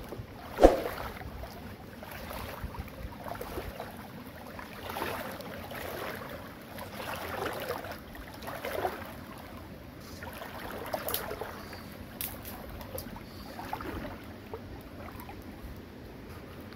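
Soft, irregular scraping and cutting sounds from a knife working through fresh vegetables by hand, every second or two, over steady outdoor background noise. One sharp click about half a second in.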